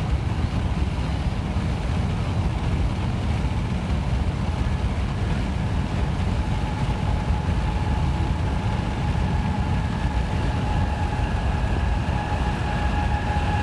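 Steady road and wind rumble of a car cruising at about 75 mph on the highway. A faint steady whine joins in about halfway through.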